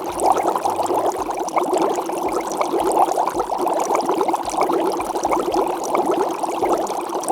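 Water pouring, a steady splashing rush.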